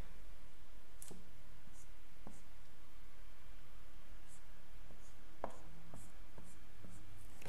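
Marker drawing short lines on a whiteboard: faint, scattered strokes and ticks over a steady low hum.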